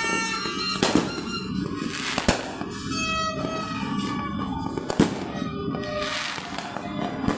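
New Year fireworks and firecrackers going off: three sharp loud bangs, about a second in, a little past two seconds and about five seconds in, over a continuous din of more distant bangs.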